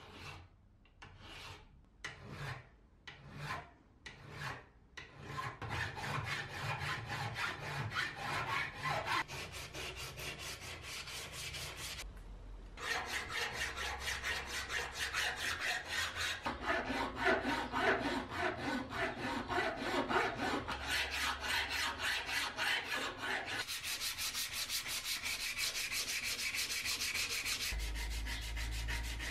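Hand file scraping back and forth across the rusty steel jaw of an antique adjustable wrench held in a vise. The strokes come slowly and separately at first, then quicker and continuous, with a short pause about twelve seconds in.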